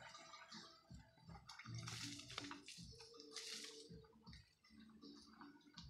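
Faint rustling and scraping of wire netting being handled and pressed against a bamboo fence, with two brief louder swishes.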